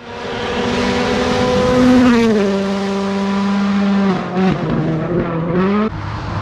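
Rally car engine running hard at high revs. Its pitch drops sharply about two seconds in, as with an upshift, dips and wobbles around four seconds, then climbs steadily as it accelerates. Near the end the sound breaks off suddenly into a lower, steadier engine note.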